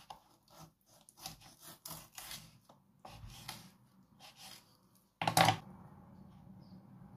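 Kitchen knife cutting a raw chicken wing in two on a bamboo cutting board: a run of short scraping, crunching strokes. A louder knock comes about five seconds in, as the cut finishes, then a faint steady hum.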